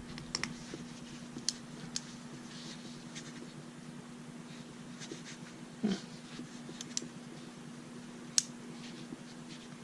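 Scattered small clicks and ticks of a Moleskine ballpoint pen's parts being handled and fitted while its refill is changed, the sharpest about eight seconds in, over a steady low hum.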